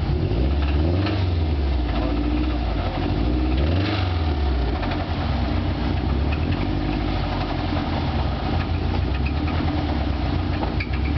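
Subaru engine revved up and back down twice, then idling with a knock. The knock is rod knock, a sign that the engine is finished.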